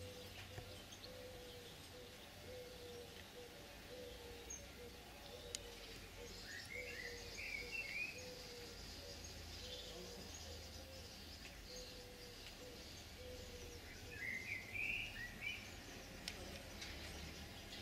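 Faint outdoor background noise with a small bird chirping in two short bursts of quick rising notes, one about a third of the way in and one near the end. A faint low note repeats steadily underneath.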